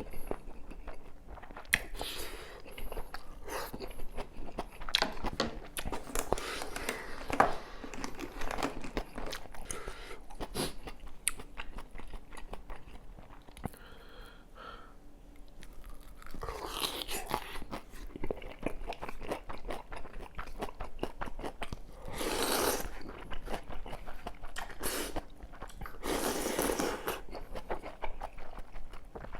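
Close-up eating of kimchi kalguksu noodle soup and potato pancake: steady chewing and crunching with many small clicks, and a few longer slurps of about a second each in the second half.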